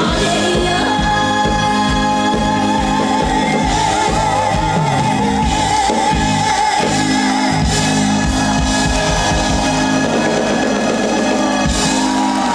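Live band playing the close of a trot song, with a long held note that wavers in vibrato above the band's steady chords.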